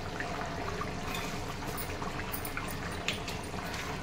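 Curry gravy bubbling as it simmers in a kadhai on the gas flame, with a few small pops and clicks.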